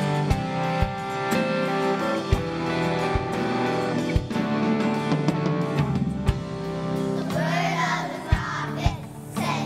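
Live band playing a song intro with guitars, held chords and kick drum beats; about seven and a half seconds in, a children's choir starts singing over it.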